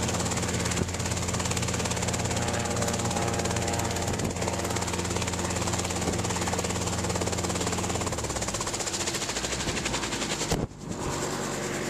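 Light two-seat training helicopter hovering, its engine and two-bladed main rotor running steadily. About eight seconds in the engine note drops as power is cut for a practice hover autorotation, and the rotor runs on as the helicopter settles. A very brief break comes near the end.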